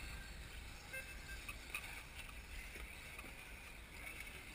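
Wind rumbling on the microphone over the faint, wavering whine of 1/10-scale brushless electric off-road buggies racing around the track.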